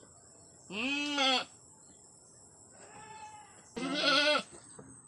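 A doe goat in difficult labour bleating three times: two loud bleats of about half a second each, with a fainter one between them.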